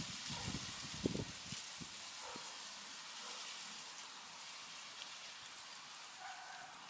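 Guinea pigs munching and tearing at a pile of pulled garden weeds and grass, a steady crackly chewing and rustling, with a few low knocks in the first second and a half.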